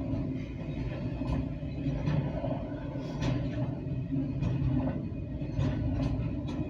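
Loaded CSX autorack freight cars rolling past with a steady low rumble, broken by irregular short clicks and clanks.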